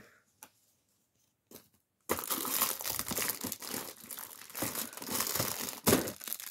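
Packaging crinkling and tearing as a toy is unwrapped from an Advent calendar compartment; the crackling starts about two seconds in, after a couple of faint clicks, and goes on as a dense run of quick crinkles.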